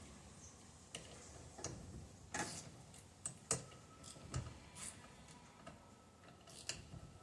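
Faint, irregular clicks and taps of a socket ratchet and hand tools working on the 11 mm bolts of a steering-wheel hub adapter, with a few short ratcheting bursts.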